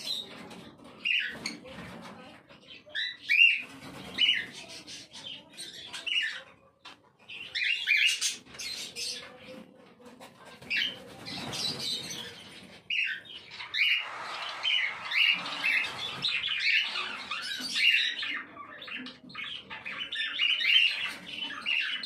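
Young cockatiel chicks calling, a string of short repeated calls that come thicker and faster from about halfway through.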